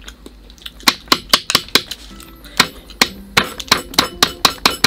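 Hard snail shells clicking and clinking against one another and the tray in quick, uneven taps, starting about a second in, as cooked moon snails are picked up and their meat picked out with toothpicks.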